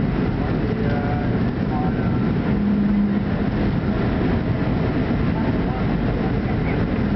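Cabin noise inside a Boeing 737-300 rolling along the runway after landing: a steady, loud rumble from the engines and the wheels on the runway. A low steady hum comes in for about a second around the middle.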